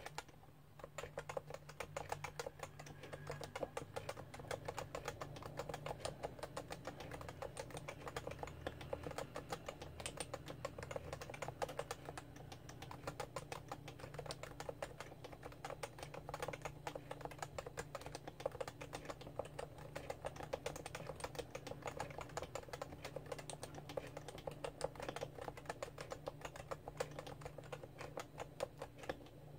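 Steady, fast typing on the Topre electrostatic capacitive switches of a Realforce R2 keyboard: a dense run of keystrokes without a break. A faint low hum lies underneath.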